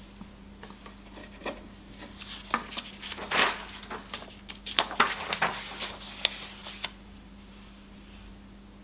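Loose sheets of paper being leafed through and shuffled on a wooden lectern: a run of crisp rustles and sharp clicks that dies away about seven seconds in.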